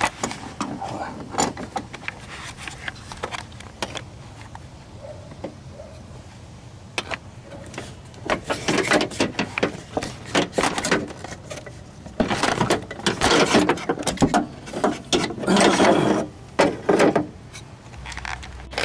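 Channel-lock pliers clicking and scraping against the metal clamp on a lower radiator hose as it is squeezed and worked loose. There are faint scattered clicks at first, then three bursts of clatter in the second half.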